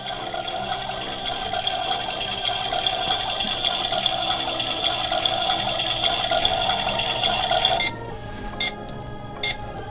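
Toy play-kitchen oven's electronic cooking sound effect playing through its small speaker after the chicken button is pressed: a steady electronic sound with several held tones. It cuts off about eight seconds in, followed by a few short electronic blips.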